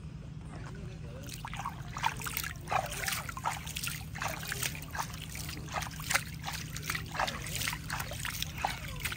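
Water dripping and trickling onto the surface of a shallow stream: many small, irregular plops and splashes, beginning about a second in.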